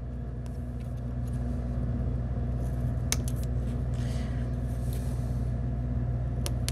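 A steady low hum, with a few sharp clicks from balsa sticks being cut with a hobby knife on a cutting mat.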